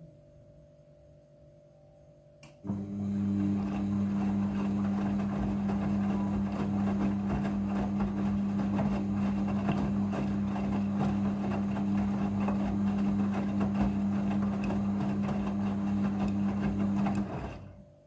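Midea front-loading washing machine turning its drum during the rinse: a steady motor hum with water and clothes sloshing. It starts suddenly about three seconds in and stops shortly before the end.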